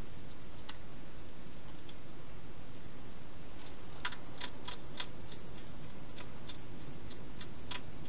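Wild hedgehog eating at a feeding bowl: a scatter of sharp crunching clicks from its chewing, coming thickest about four to five seconds in, over a steady low hiss.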